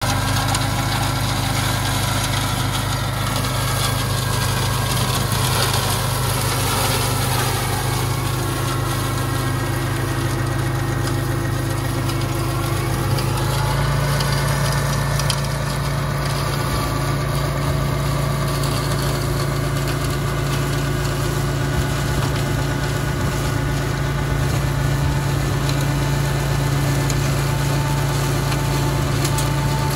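A compact tractor's engine running steadily while it drives a side-mounted flail mower through roadside grass. The engine note steps up to a higher steady pitch about 13 seconds in.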